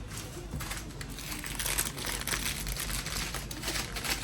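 Packaging crinkling and rustling as it is handled, with irregular crackles throughout.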